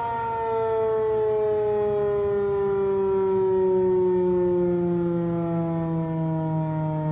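Federal Signal 508 electromechanical warning siren running a growl test: a low siren tone winding down, its pitch falling slowly and steadily.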